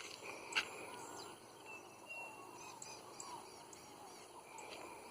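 Chorus of frogs calling around flooded water: many short overlapping peeps and chirps, with one sharper, louder call about half a second in.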